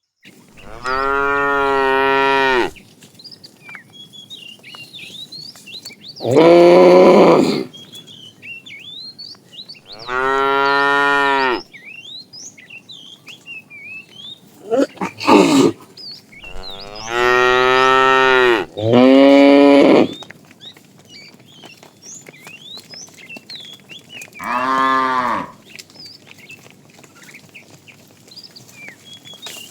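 Cattle mooing: about seven long, loud calls, several in quick succession around the middle, with short gaps between the others.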